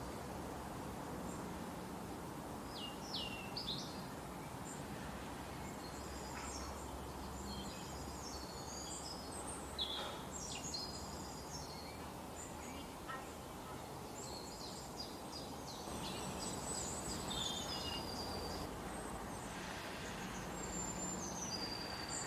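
Forest ambience: several birds chirping and trilling in short, high phrases over a steady background hiss.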